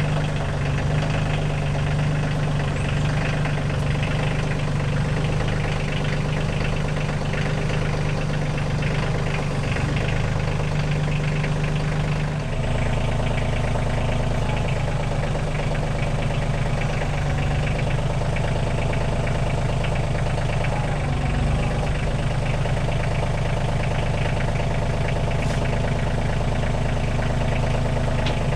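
Kioti CK2610 compact tractor's three-cylinder diesel engine running steadily, its note shifting about twelve seconds in.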